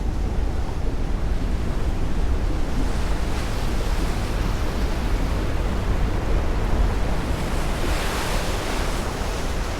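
Steady rushing noise with a deep rumble, turning hissier about eight seconds in.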